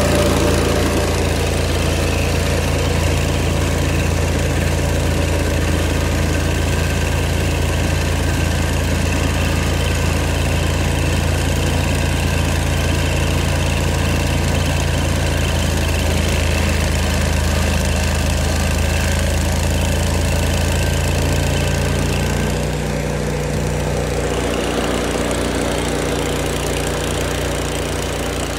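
Engine of an old Vermeer stump grinder running steadily, then dropping to a lower, slightly quieter speed after about twenty-two seconds.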